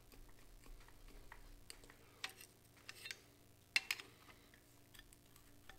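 A few faint metallic clicks of channel-lock pliers gripping and rocking a pressed-in spark plug heat tube in the cylinder head of a Dodge 5.2 Magnum V8, working it loose; one click just past the middle is sharper than the rest.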